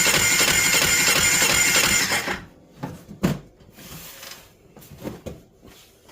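2008 Polaris RZR 800's twin-cylinder engine being cranked over by the starter for a compression test, a steady pulsing churn that stops about two seconds in, followed by a few light clicks. The test shows the right-side cylinder with next to no compression, about 10 psi.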